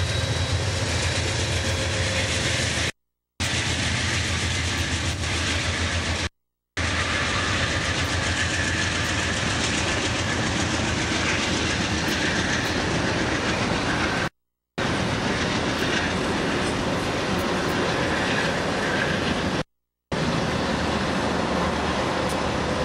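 Passenger cars of a passing train rolling by close at speed: steady rumble and rush of steel wheels on the rails. The sound cuts out completely four times for a fraction of a second.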